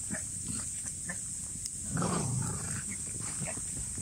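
Schnauzer growling during rough play, the low growl swelling louder about halfway through, with scuffling in the snow.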